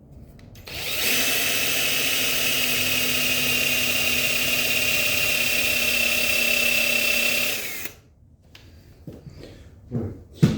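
Power drill boring a dowel hole into wood, running at a steady speed for about seven seconds before stopping, followed by a couple of short knocks near the end.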